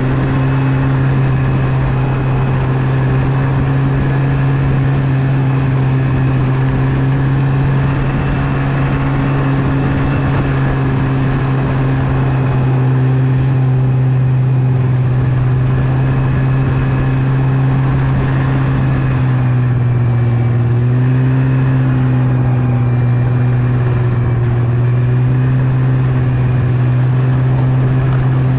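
Yamaha Venture snowmobile engine running at a steady speed, its pitch dipping briefly and coming back up about twenty seconds in.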